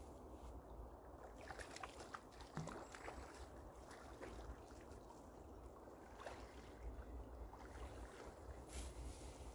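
Faint steady rush of fast-flowing chalk-stream water, with a low wind rumble on the microphone and a few faint scattered clicks.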